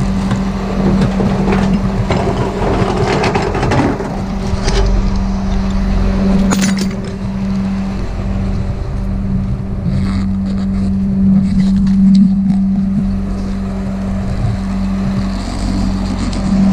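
A rollback tow truck's engine idling with a steady hum, with scattered clanks and knocks, mostly in the first few seconds.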